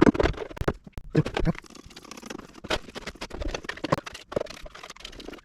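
Metal gear-reducer parts being handled and dunked into a cut-open plastic jug of rust dissolver: a dense run of irregular clunks, clicks and scraping.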